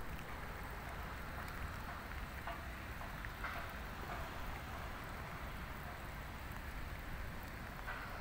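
Light rain falling on foliage: a steady soft hiss with a few faint drop ticks and a low rumble underneath.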